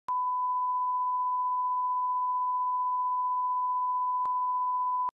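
A 1 kHz bars-and-tone reference test tone: one steady, unchanging beep, with a faint click about four seconds in. It cuts off suddenly near the end.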